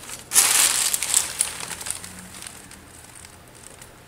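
Crinkling rustle of plastic bubble-wrap packaging being handled, loud for under a second about half a second in, then dying away to faint scattered crackles.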